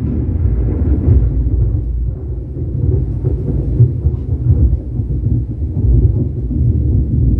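Deep, continuous rumbling sound effect, thunder-like, played loud through a Sony HT-S20R home theatre system, with the bass heavy and little treble.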